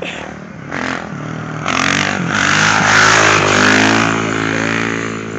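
Dirt bike engine running hard at high revs, growing louder to a peak about three seconds in and then easing off as it passes by.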